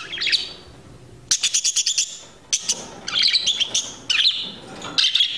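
Pet parakeet chirping and chattering in quick runs of high chirps, several short bursts one after another.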